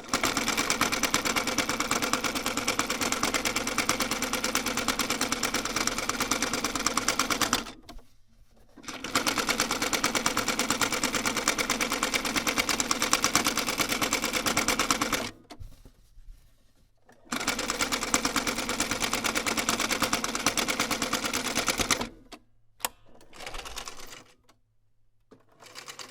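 Sewing machine stitching at speed in three long runs of rapid, even needle strokes, stopping briefly between them, then a few short bursts of stitching near the end.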